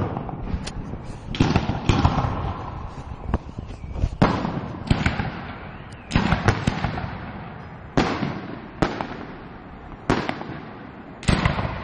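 Fireworks display: bangs going off one after another, roughly one a second, a few in quick pairs, each trailing off in a rolling echo.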